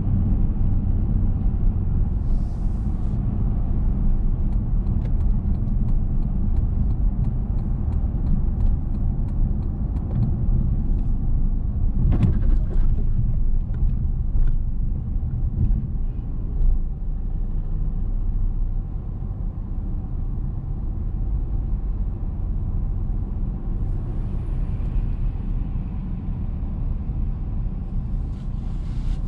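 Steady low rumble of a car driving in city traffic, road and engine noise, with a sharp knock about twelve seconds in. The rumble drops a little in the last third as the car comes to a stop in a traffic queue.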